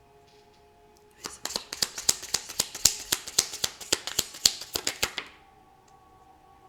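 A deck of tarot cards being shuffled by hand: a quick run of card snaps and slaps, about five or six a second, starting about a second in and lasting about four seconds. Under it is soft background music with steady held tones.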